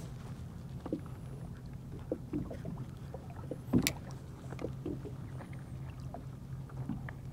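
Small knocks and clicks from gear being handled on a fishing kayak, with one sharp knock about four seconds in, over a steady low rumble.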